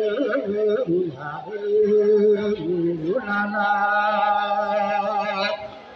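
A man chanting a slow, ornamented melody in long held notes that waver with vibrato, over a steady low hum.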